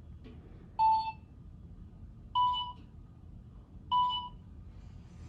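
Pomsies Lumies interactive toy pet giving three short electronic beeps about a second and a half apart, the second and third slightly higher than the first. This is the toy stepping through its colours in its Rainbow Tag game.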